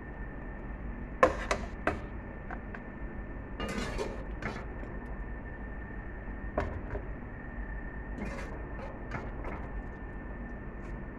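Scattered light knocks and clinks from a metal baking tray as chicken and potato slices are arranged on it by hand, over a steady background hum with a faint high tone.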